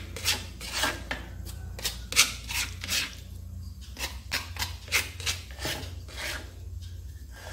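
Repeated rasping scrapes, about two to three strokes a second and somewhat irregular, over a low steady hum.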